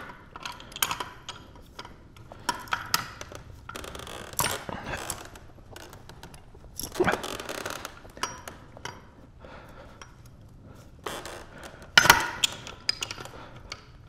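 Metal wrenches gripping and turning on a gas valve's threaded pipe fitting: scattered clicks, knocks and short scrapes of steel jaws on metal, with louder clanks about seven and twelve seconds in, as the seized threads resist.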